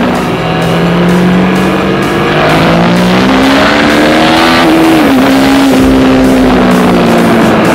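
Yamaha Tracer motorcycle engine pulling under acceleration, its note rising for a couple of seconds and then dropping sharply at a gear change about two-thirds through, before running steadily, under heavy wind rush on the microphone.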